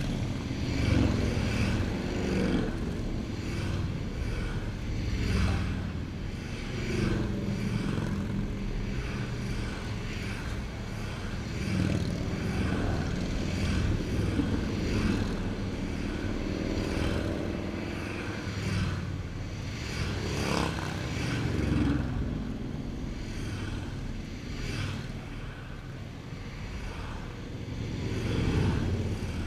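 A steady stream of cruiser and touring motorcycles riding past one after another. The engine notes swell and fade every few seconds as each bike approaches and goes by, with the odd car passing among them.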